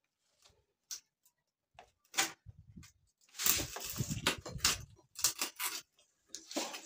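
Pliers clicking and scraping on the aluminium crimp tabs of a radiator header as they are bent over to hold a new plastic top tank. About three seconds in there is a longer, louder stretch of rattling and rubbing as the radiator is turned and handled.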